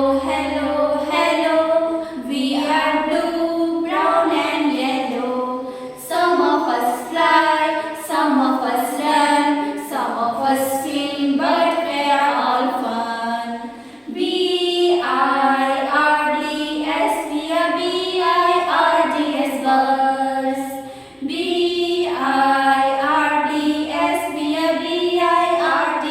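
A female voice singing a children's rhyme about a bird, unaccompanied, in sung lines with brief breaths between them.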